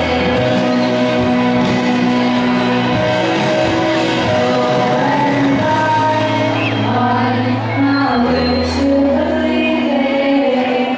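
Two young women singing a pop song in English into microphones over an instrumental backing track.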